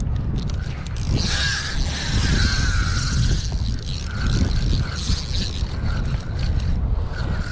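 Wind buffeting the microphone, with a brighter rushing hiss from about one to three and a half seconds in.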